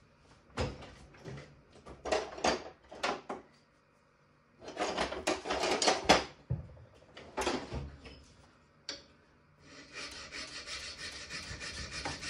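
A hand file rasping on a metal casting clamped in a bench vise, roughing it down by hand. A few separate scraping strokes and handling sounds in the first half, then from about ten seconds in a steady run of quick, even filing strokes.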